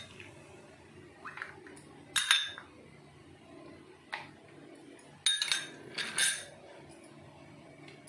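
Ice cubes dropped from a steel spoon into glass tumblers of juice, with several sharp clinks of ice and spoon against the glass: the loudest about two seconds in and a cluster around five to six seconds.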